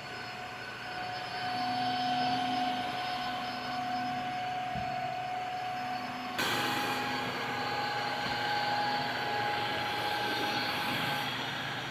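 Tineco Floor ONE S5 cordless wet/dry vacuum running with a steady motor whine. About six seconds in, the motor steps up in pitch and gets louder.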